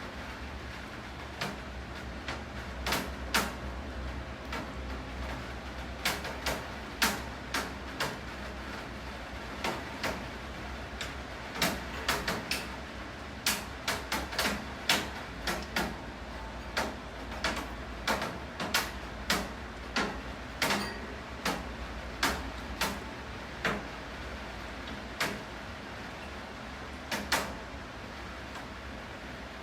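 Steady rain with drops or drips tapping sharply on a hard surface, unevenly, about one or two taps a second over the rain's steady hiss.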